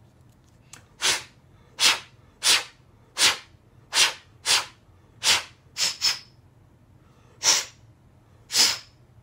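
About eleven short, sharp puffs of blown air, each a quick hiss, at uneven intervals with a longer gap near the end: air blown over a freshly washed airsoft gas-magazine part to dry it.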